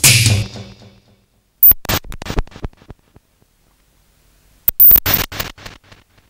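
A song's backing music dies away, then two short runs of rapid percussion hits about three seconds apart, each starting sharp and fading out over about a second.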